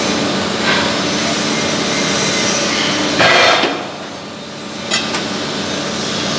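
Steady workshop machinery noise with a low hum. About three seconds in there is a louder burst, then the noise dips for about a second, and two sharp clicks follow.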